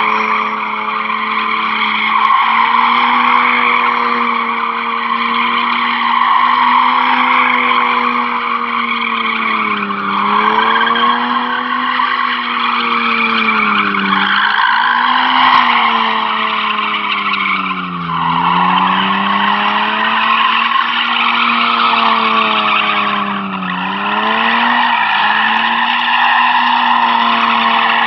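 BMW E36 spinning donuts: its engine held high in the revs while the rear tyres squeal and skid. The engine pitch sags and picks back up several times as the throttle is eased and reapplied.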